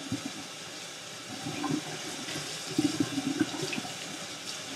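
Kitchen tap running steadily onto pechay (bok choy) and sliced radish in a colander in the sink, the water splashing irregularly through the leaves as they are rinsed.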